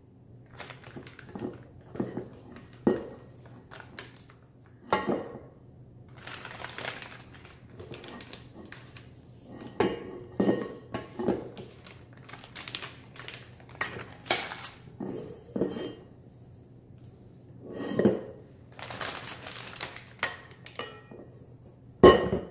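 A wooden spoon scraping and knocking against a stainless steel mixing bowl as thick whipped chocolate cream is scooped out, in irregular clinks and scrapes, with a louder clatter just before the end.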